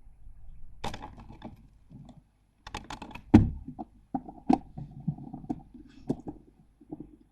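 Irregular scratching, scrabbling and knocking against the wood inside a nest box, with one heavy thump a little over three seconds in.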